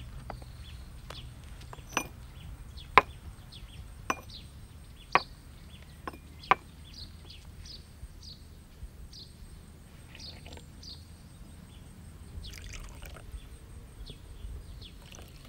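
Porcelain teacups and teapot clinking in a run of about six sharp clinks in the first seven seconds, then tea being poured into small cups.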